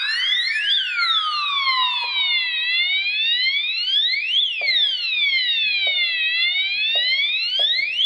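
Electronic fire alarm sounder sounding a siren tone that sweeps up and down, peaking about every three and a half seconds, with several sweeps overlapping. The system is in fire alarm after a smoke detector test.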